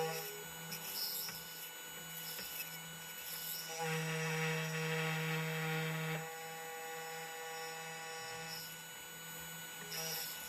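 CNC key cutting machine milling the track of a laser key blank: a steady motor whine with a light grinding hiss, getting louder for a couple of seconds in the middle while the cutter bites.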